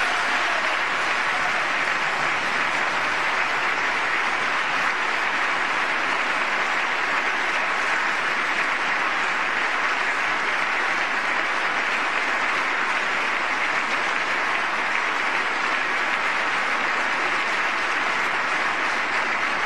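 Sustained applause from a large audience, steady and unbroken, responding to a line in a speech.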